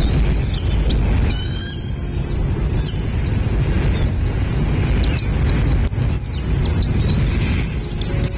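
Birds chirping: a run of short, high calls repeating every half second to a second, over a steady low rumble.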